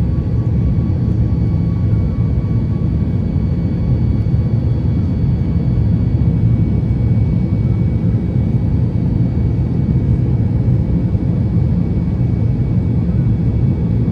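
Steady cabin noise of a Boeing 737 MAX 8 airliner: an even, low rushing drone with faint, steady high tones above it.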